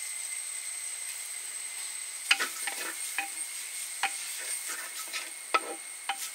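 Chopped onion frying in hot coconut oil in a black clay pot, with a steady sizzle. From about two seconds in, a wooden spatula stirring it scrapes and knocks against the pot several times.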